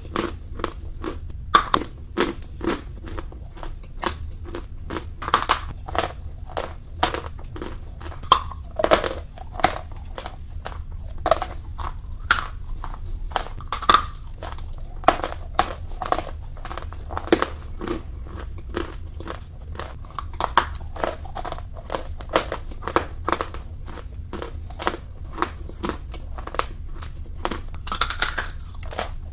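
Close-miked biting and chewing of edible chalk: a steady run of sharp, irregular crunches and snaps, over a faint low hum.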